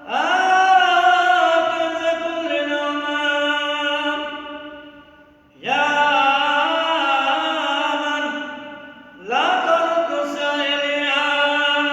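A man's voice chanting an Arabic Christian liturgical prayer, unaccompanied, in three long sung phrases with short breaks between them. Each phrase opens with an upward glide and then holds drawn-out notes.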